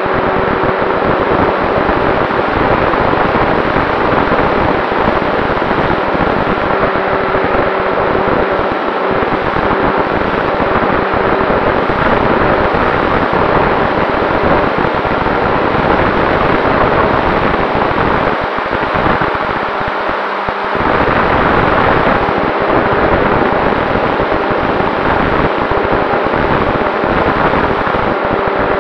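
Radio-controlled model Cessna 188 in flight, heard from a camera on its nose: the propeller and motor running under heavy wind rush over the microphone. A faint steady tone comes and goes, and the sound drops a little about twenty seconds in.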